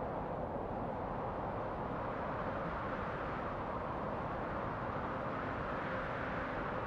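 Steady rush of wind, an even noise with no distinct events.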